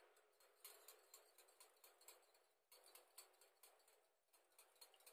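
Faint, quick clicking of a wire whisk striking the bowl as eggs are beaten, several clicks a second with a couple of short pauses.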